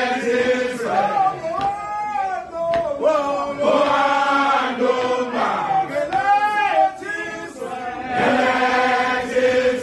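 A crowd of men singing a Zulu chant together while on the move. The song comes in repeated sung phrases, swelling into fuller group passages at the start, about four seconds in and again near the end.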